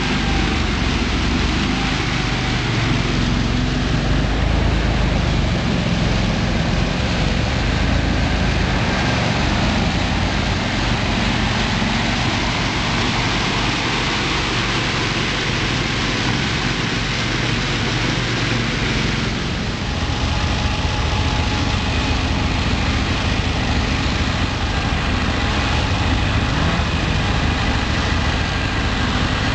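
Engines of amphibious six-wheel ATVs running steadily, with an abrupt change in the sound about two-thirds of the way in.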